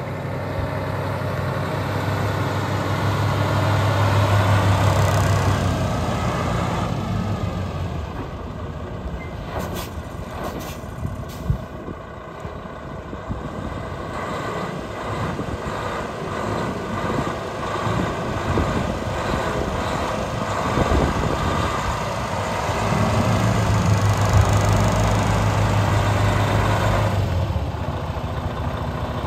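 2014 Freightliner Cascadia 125 sleeper tractor's diesel engine running as the truck moves slowly around a gravel lot, growing louder as it comes close about four seconds in and again near the end. A few brief sharp sounds come about ten seconds in.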